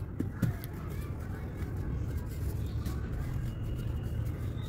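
Dry sand-cement chunks knocking together twice about half a second in as they are broken apart by hand, then soft gritty crumbling under a steady low rumble.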